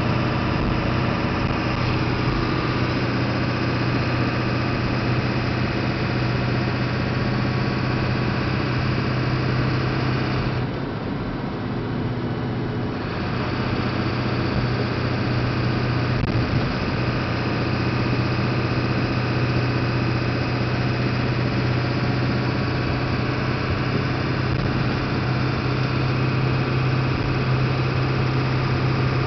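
7.3-litre V8 diesel truck engine running steadily while driving, with a strong low hum. About eleven seconds in it goes briefly quieter for a couple of seconds, then returns.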